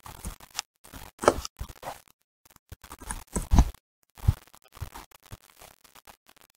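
Computer keyboard being typed on: a run of irregular key clicks with a few heavier thuds, stopping and starting in short bursts.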